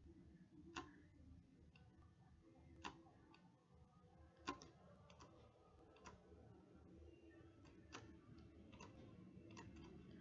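Faint computer mouse clicks, irregularly spaced: a sharper click every second or two with softer ones between, over a low steady hum.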